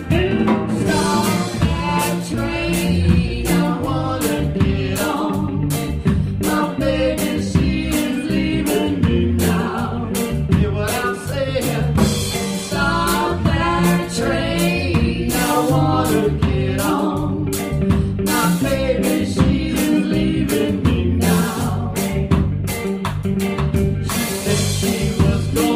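Rocksteady band playing: a woman sings lead over electric guitar, bass and drums with a steady beat.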